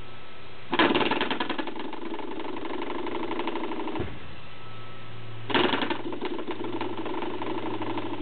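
Coil-spring door stopper flicked twice, about a second in and again about five seconds later, each time boinging and buzzing rapidly for about three seconds as it dies away.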